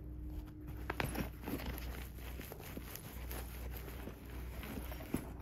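Hands handling a fabric backpack and a sticker: soft rustling and light taps, busiest about a second in, with one sharp click near the end, over a faint low hum.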